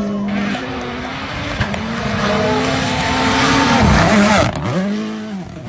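A WRC Rally1 car passing close at speed on a gravel stage. The engine and tyre noise build to their loudest about four seconds in, then the revs drop and swoop up and down several times as it goes by.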